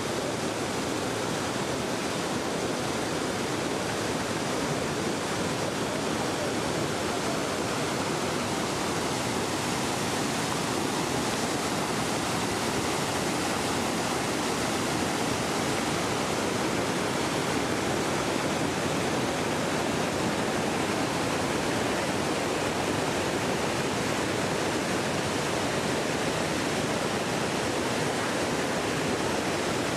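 Iguazu Falls: a huge volume of water pouring steadily into its plunge pool, heard as a constant, even rushing noise.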